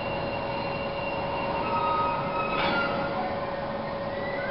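Container freight train of ÖBB Sgnss flat wagons rolling slowly past, the wagons rumbling over the rails with a steady thin squeal from the wheels. A single metallic clank comes a little past halfway.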